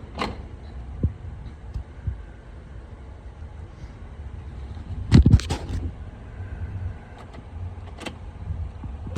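Handling noise: a few sharp clicks, then a quick cluster of loud knocks and clunks about five seconds in, and another loud clunk right at the end, over a low steady background rumble.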